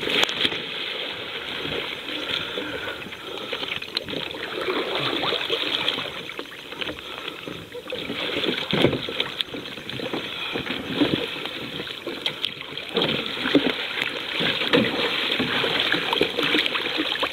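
Water splashing and sloshing around a capsized sit-on-top kayak as a person in the water rights it and climbs back aboard, with irregular splashes throughout.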